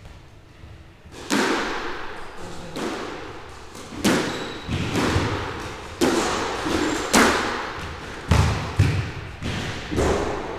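Squash rally: a squash ball struck by rackets and smacking off the court walls, about nine sharp impacts roughly a second apart, each ringing on in the hard-walled court.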